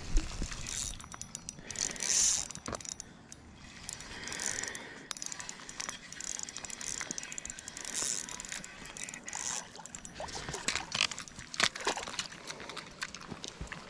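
Spinning reel being cranked to bring in a hooked fish, with clicks from the reel and handling, and rustling of clothing against the camera. The clicks come thickest near the end.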